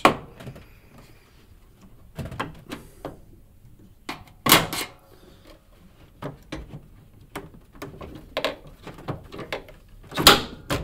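A screwdriver popping out the plastic clips that hold a washing machine's control panel, then the panel being worked loose by hand: a series of separate clicks and knocks, the loudest about four and a half seconds in and again near the end.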